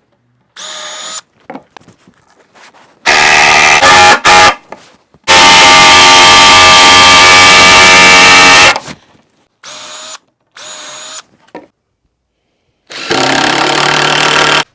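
Cordless Milwaukee impact driver driving screws into timber beams. There are several short, quieter spins, then loud runs, the longest about three seconds, at a steady pitch.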